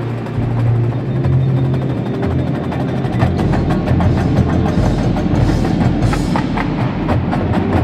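Marching band playing: sustained low notes under percussion strikes that grow busier from about three seconds in.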